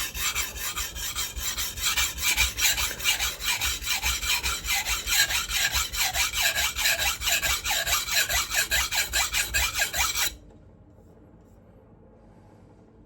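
Kitchen knife blade being sharpened on a coarse 400-grit whetstone: rapid, even back-and-forth strokes of steel scraping over the wet stone, loud and gritty from the coarse abrasive. It is removing material quickly, raising a mud on the stone. The strokes stop suddenly about ten seconds in.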